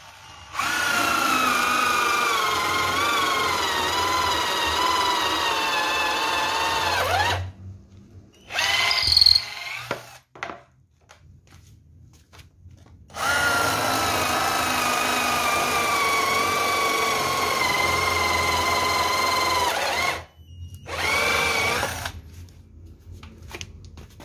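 Corded electric drill converted to run on an 18-volt battery pack, drilling into wood with a twist bit. Two long runs of about seven seconds each, the motor's whine sagging and wavering in pitch as the bit loads up, with a short burst of the motor after each.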